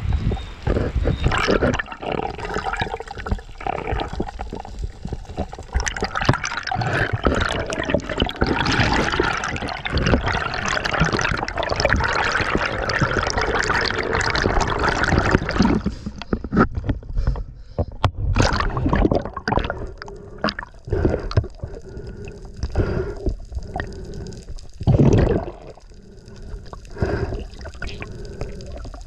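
Water sloshing and gurgling around a spearfisher's action camera, with many small clicks and knocks. Busy and dense for the first half, then sparser, with one louder thump near the end.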